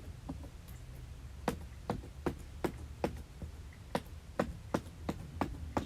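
Air bubbles in slime being pressed and popped: a quick, irregular run of small sharp pops and clicks, about two or three a second.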